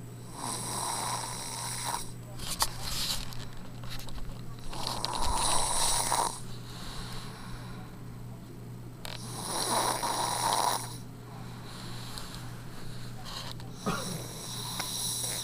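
Snoring in sleep: four long snores, one about every four to five seconds, each lasting a second and a half or more.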